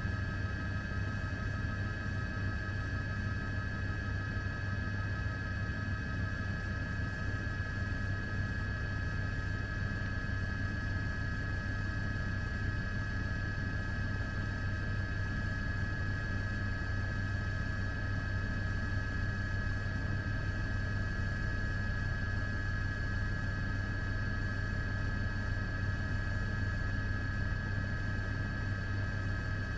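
Steady helicopter engine and rotor noise from the aircraft carrying the camera: a constant low drone with a high whine over it, unchanging throughout.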